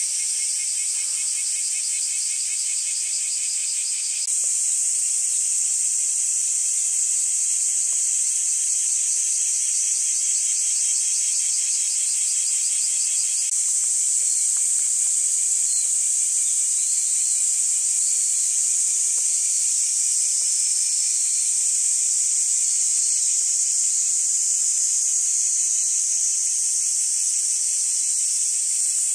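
Loud, steady chorus of insects: a high, shrill hiss with a fast pulsing trill layered in over roughly the first half, stepping up in level twice.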